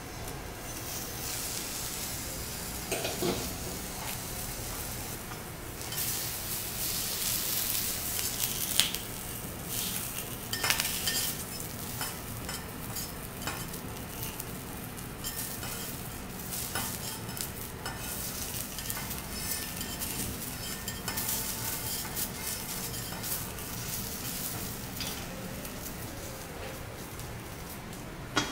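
Abalone in the shell sizzling on a steel teppanyaki griddle, with metal spatulas scraping and clicking against the plate throughout. A sharp metal clank near the end as the steel dome cover is set back down on the griddle.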